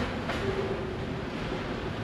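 Tail end of a slow-moving freight train, its last auto-rack car rolling over a road crossing, with steel wheels rumbling on the rails. Brief faint squealing tones sound in the first second.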